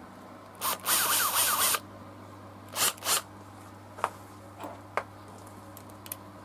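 Bosch GDR18V-LI 18V cordless impact driver run briefly with no load, one burst of about a second followed by two short blips, then a few sharp clicks.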